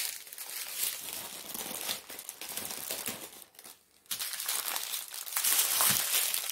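Small plastic bags of diamond painting drills crinkling as they are handled and folded. There is a brief pause a little past halfway, then louder crinkling.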